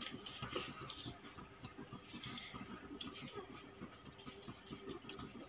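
Faint, scattered light clicks and taps of hand and spoon work at a steel mixing bowl of flour as salt is added to pizza dough.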